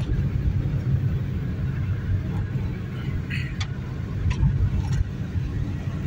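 Car driving over a dirt road, heard from inside the cabin: a steady low rumble of engine and tyres on the rough surface, with a few short clicks and knocks in the middle.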